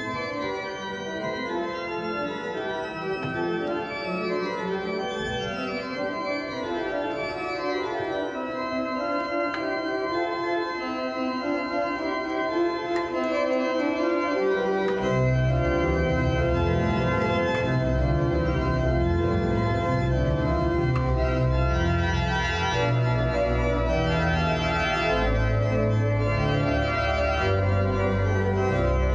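Digital concert organ playing Baroque music. At first only the manuals sound; about halfway through a deep pedal bass comes in and the music grows louder.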